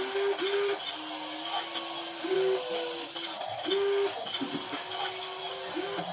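Small electric gear motors of metal RC construction models whining. The pitch steps up and down and cuts in and out every half second to a second as the motors start, stop and change load, over a steady gearbox hiss.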